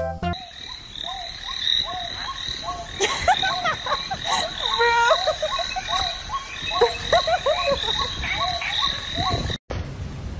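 A chorus of frogs calling, many short rising-and-falling chirps overlapping each other, over a steady high insect drone; it cuts off suddenly near the end.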